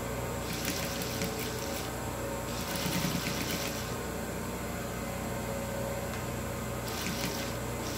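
Electric sewing machine stitching through layered cotton fabric in short stop-start runs of about a second each, with pauses while the fabric is guided between runs.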